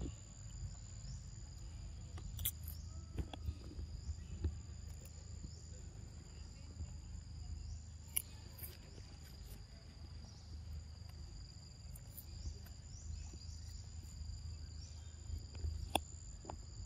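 Forest insects droning as two steady high-pitched tones over a low outdoor rumble, with a few sharp clicks scattered through it.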